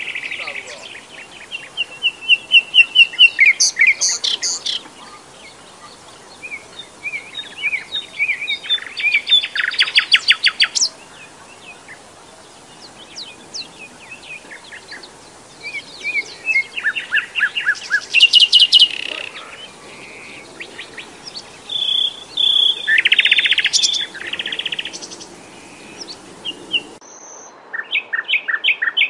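A small brown warbler singing a long, varied song: phrases of fast repeated notes and rattling trills with short pauses between them. Near the end come a few short, clipped notes.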